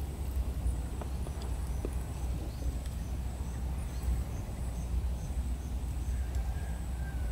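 Outdoor ambience: a steady low rumble on the microphone, with a faint run of short high chirps, about two or three a second, through the middle.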